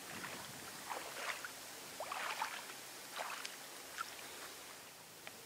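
Air fizzing and bubbling up out of the gravel beach as the incoming tide floods over it, air rushing out from between the rocks. A steady hiss with irregular clusters of small crackling pops, about five bursts.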